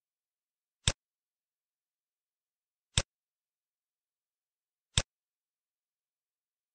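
Computer mouse button clicking three times, about two seconds apart, each a single sharp click against silence.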